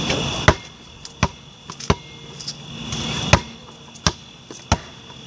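Basketball bouncing on hard ground close by: six sharp bounces at uneven intervals.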